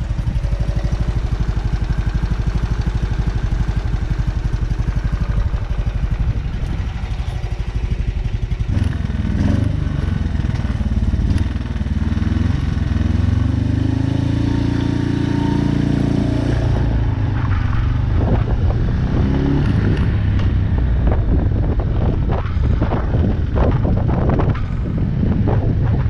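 BMW R27's 250 cc single-cylinder engine idling with a fast, even beat. From about nine seconds it revs and pulls away, its pitch rising and falling through the gears. In the later part, gusty wind noise on the microphone mixes with the engine while riding.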